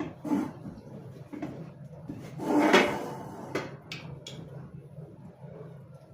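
Household handling noises: a few light knocks and clicks, with one louder scraping rush a little before halfway, over a low steady hum.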